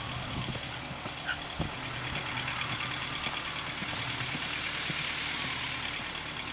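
Faint hoofbeats of a horse galloping away over dry dirt, under a steady low hum and a high, pulsing hiss.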